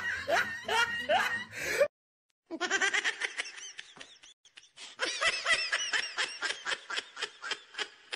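Laughter in quick repeated bursts, cut off sharply about two seconds in. After a half-second gap comes a second bout of laughter, with a brief lull near the middle.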